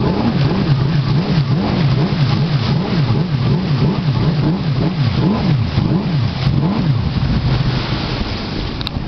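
Jet ski engine running, its pitch rising and falling about twice a second, then steadier near the end, over a continuous rush of wind and water.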